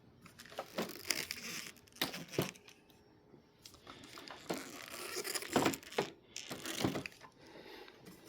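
Handling noise: irregular rustling and scraping with a few light knocks, spread through the whole stretch, with the louder knocks about two seconds in and around five to seven seconds in.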